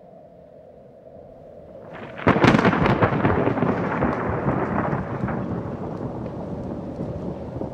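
A faint drone swells, then a sudden thunderclap breaks about two seconds in: sharp crackles followed by a long rolling rumble that slowly dies away.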